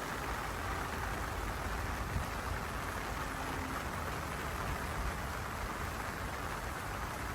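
Steady rain falling on lotus leaves and a lake, an even hiss of drops with a low rumble underneath.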